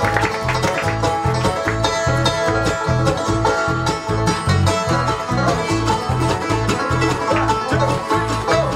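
Bluegrass band playing live, with a banjo picking out front over acoustic guitar and mandolin and a steady bass line of about two notes a second.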